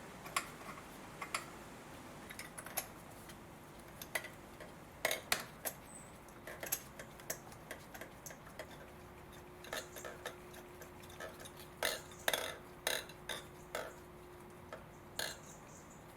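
Irregular light metallic clicks and taps as spark plugs are handled and threaded by hand into the cylinder head of a BMW E91 318i, coming in quick clusters.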